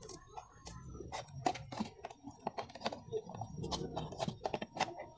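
Scissors snipping through a thin plastic motor-oil bottle: a quick, irregular run of short snips and clicks as the blades cut the plastic.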